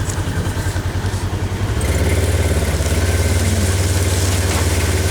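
Polaris RZR side-by-side's engine running as it drives, with a low pulsing hum that gets louder and steadier about two seconds in as the throttle opens.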